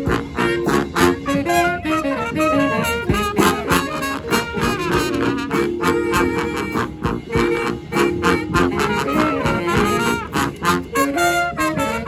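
A brass band playing live: several horns play layered melodic lines over a steady percussive beat.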